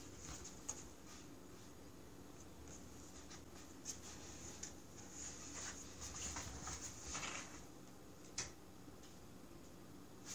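Faint scratching and rustling of a cat pawing and rubbing against the side of a cardboard box, with one sharper tap about eight seconds in.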